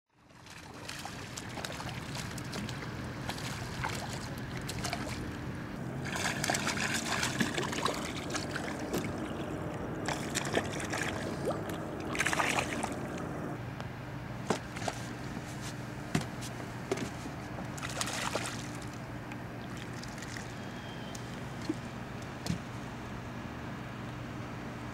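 Hooked skipjack herring splashing at the water's surface as it jumps and shakes on the line, in several bursts, over a steady low hum.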